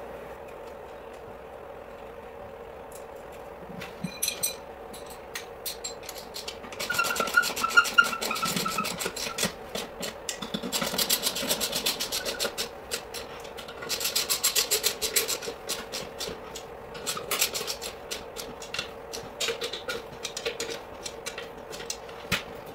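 Socket ratchet wrench clicking in quick runs as lug nuts are run down on an ATV wheel, starting about four seconds in, with a short squeak about seven seconds in. A steady low hum runs underneath.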